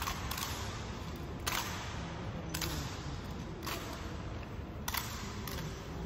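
Sharp, echoing clacks, about one a second with a couple of quicker doubles: ceremonial guards' boot heels striking the hall floor in slow drill steps.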